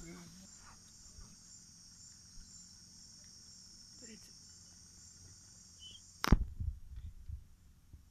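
Steady high-pitched chorus of night insects. About six seconds in, a sharp knock followed by a few low bumps.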